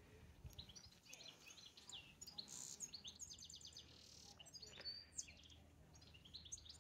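Small songbirds chirping and singing faintly, with short high calls and quick runs of repeated notes throughout.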